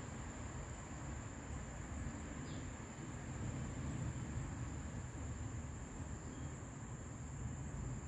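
Crickets trilling steadily at a high pitch over a low, even background rumble.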